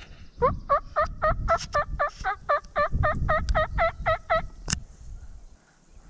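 Wild turkey yelping: a long, even run of about eighteen loud yelps at roughly four a second, over footsteps swishing through dry grass. A single sharp click follows soon after the calls stop.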